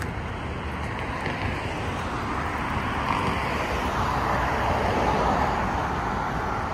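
Road traffic on a city street: cars driving past, a steady rush of tyres and engines that swells about two-thirds of the way through as a car goes by, then eases.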